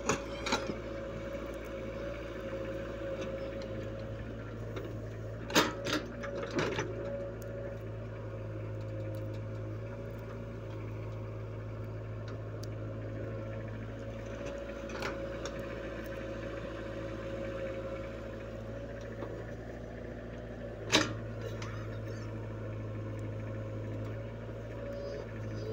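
Diesel engine of a compact tracked excavator running steadily as it digs and loads soil, with a few sharp knocks from the bucket working, the loudest about five and a half and twenty-one seconds in.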